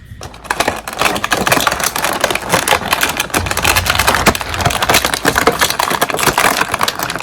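Plastic toy packaging being crinkled and handled, a loud dense crackle that starts about half a second in.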